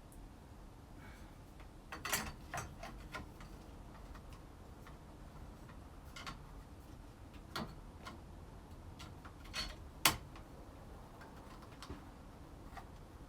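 Scattered light clicks and taps of small parts and hand tools being handled during chainsaw repair work: a quick run of them about two seconds in, then single ones every second or two, with the sharpest click about ten seconds in.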